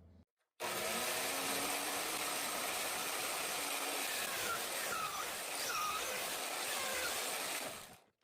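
Shopsmith bandsaw running and cutting a wood spoon blank: a steady sawing noise that starts abruptly and fades out near the end, with a couple of short dipping tones about halfway through.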